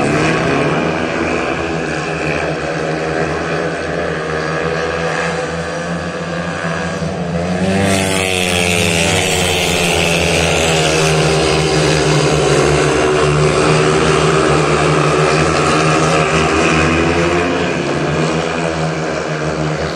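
Speedway motorcycles' 500cc single-cylinder methanol engines racing round the oval, several engine notes rising and falling as the riders throttle through the bends and down the straights. About eight seconds in the pack sweeps closer and the sound turns louder and brighter for a while.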